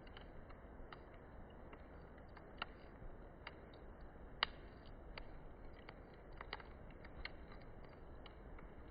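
Wood campfire crackling: irregular faint snaps and pops, about one to two a second, with one sharper pop about halfway through.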